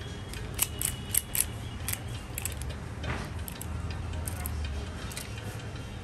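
Light metallic clicks and rattles from a Honda City lock cylinder and its key being handled: several quick clicks in the first second and a half, then a few scattered ones, over a low steady hum.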